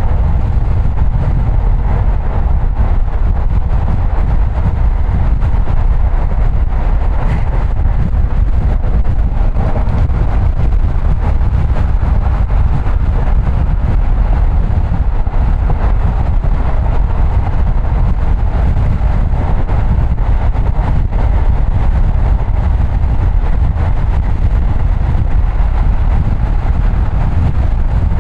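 Steady low rumble of a car driving along, with road and tyre noise and no sudden events.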